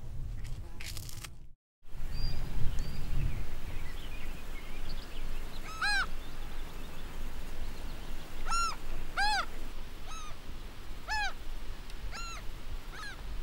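A bird giving about seven short honking calls, each rising and falling in pitch, from about six seconds in.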